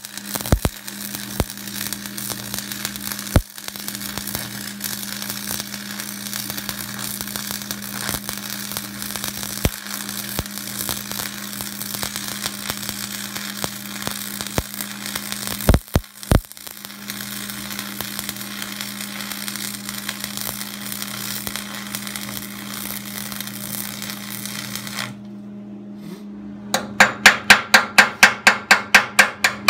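Arc welding on steel: a steady crackle and sizzle from the arc over a constant low electrical hum, with a few sharp pops. After a short break near the end, rapid hammer blows on metal, about four or five a second.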